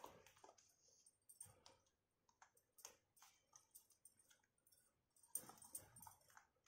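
Near silence with faint scattered clicks and rustles of hand-sewing: needle and thread being pulled through cloth on a plastic doll, with a denser cluster of handling noise about five seconds in.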